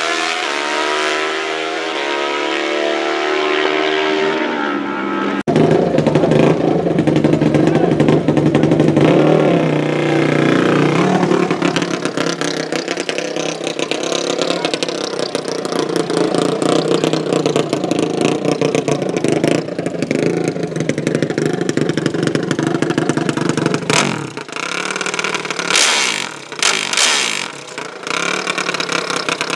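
Drag-racing engines at full throttle, pitch climbing through the gears, with an abrupt break about five seconds in. The level surges and dips near the end.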